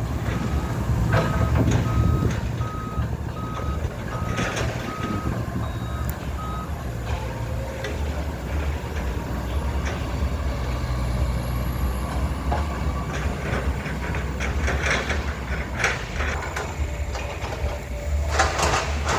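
Excavator's diesel engine running steadily while its travel alarm beeps about two times a second, stopping about six seconds in. Scattered cracking and crunching as the excavator fells an oil palm trunk, heaviest near the end.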